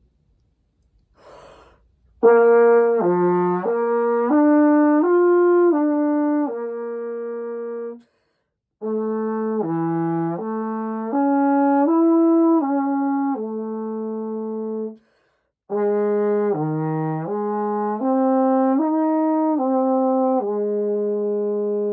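Trombone playing a lip-slur flow study: three phrases of quick slurred notes stepping up and down, each ending on a long held note. Each phrase starts a little lower than the one before, as the slide moves to the next position, with short pauses for breath between phrases.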